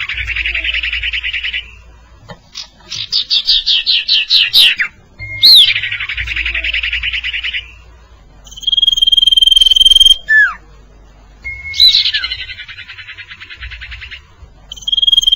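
A recorded bird-lure call for the sirtu, repeating its phrases. The pattern is a short rising-and-falling whistle leading into a rasping buzzy trill, then a fast run of about eight falling chirps, then a long steady high whistle that ends in a quick falling note.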